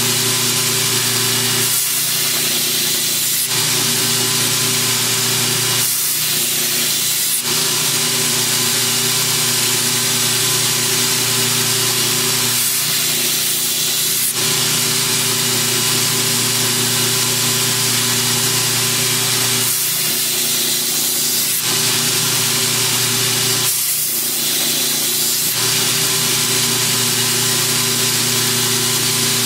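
Belt grinder running with a steady motor hum while a steel machete blade is ground against the abrasive belt, giving a continuous grinding hiss. The hiss changes briefly about five times as the blade is worked in passes, reprofiling a flat, edgeless blade into a new bevel.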